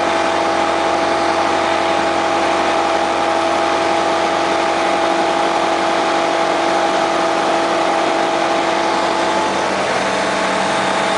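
Diamond Katana DV-20's Rotax 912 engine and propeller running steadily at high power during the take-off roll and lift-off of a touch-and-go, heard inside the small cabin with the rush of airflow.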